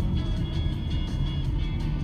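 Music playing inside a moving car's cabin, over a steady low rumble of engine and road noise.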